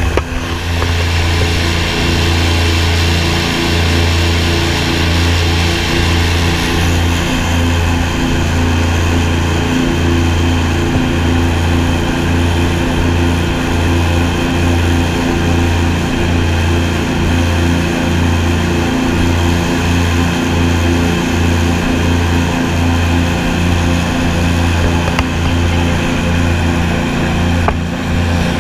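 Airboat's engine and air propeller running loud and steady at cruising speed, a deep droning hum with a rough buzz above it.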